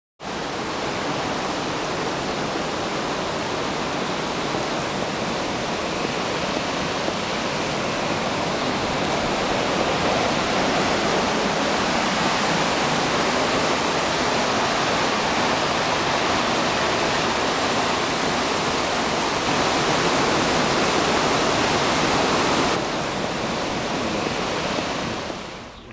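Water rushing steadily down a narrow stone-walled canal and spilling over a small weir, a continuous hiss with no break.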